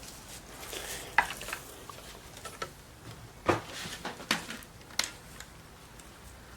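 Handling of a Tascam DP-008 multitrack recorder and its power plug: a few separate sharp clicks and light knocks, the loudest about a second in and again past the middle, as the plug is put in and the repaired jack is tried for looseness.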